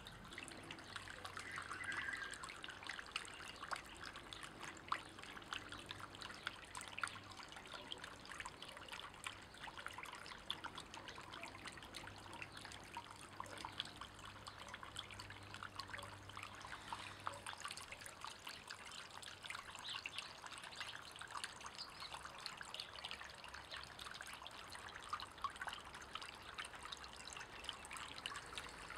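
Water trickling and splashing over the stones of a small stone garden fountain, a steady patter of fine splashes. A faint low hum runs under it and stops a little past halfway.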